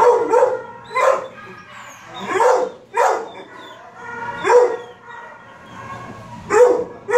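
Dog barking in a shelter kennel, about seven sharp barks at irregular intervals.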